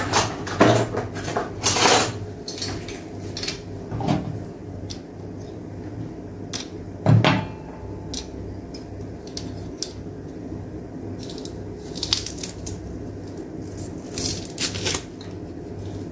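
Kitchen utensils knocking and clinking on dishes at irregular moments while garlic is crushed, with the loudest knock about seven seconds in.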